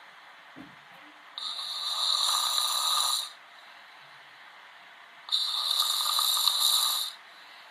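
A man snoring in his sleep: two snores, each about two seconds long, with about four seconds of quiet breathing between them.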